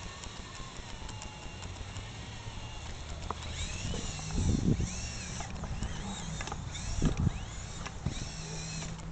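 Radio-controlled rock crawler's electric motor and gear drive whining at crawling speed, its pitch stepping up and down with the throttle. Two louder knocks come about four and a half and seven seconds in.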